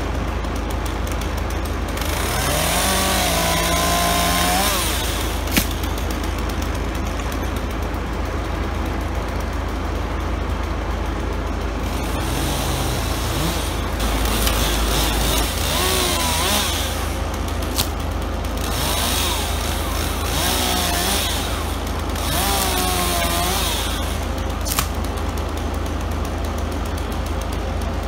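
A chainsaw running, revved up for a few seconds at a time about three times between quieter running, with a few sharp clicks.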